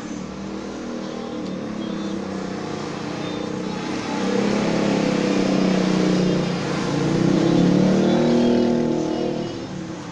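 A motor vehicle engine running and revving, its pitch rising and falling. It gets louder about four seconds in, swells again, then fades near the end.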